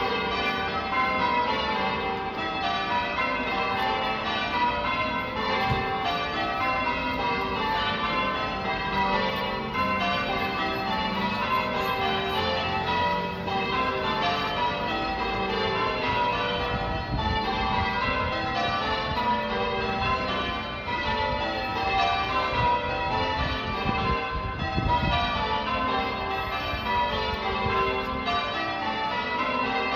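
Church bells change ringing: the bells strike one after another in a quick, steady stream, each note ringing on and overlapping the next.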